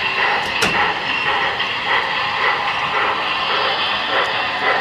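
HO scale model train running on a layout, its rolling and sound-decoder noise mixed with the babble of a crowd, with one sharp click about half a second in.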